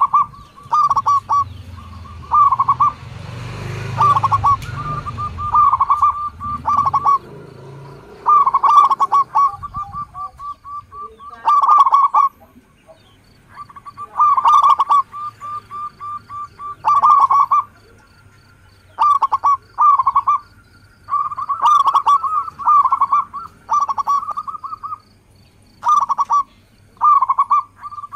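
Zebra doves (perkutut) cooing: phrases of quick staccato coos repeated every second or two, with short pauses between bursts.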